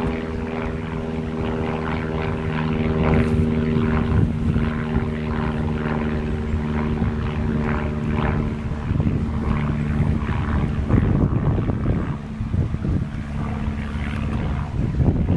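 A steady engine drone with an even hum for about the first nine seconds, giving way to gusty wind noise buffeting the microphone.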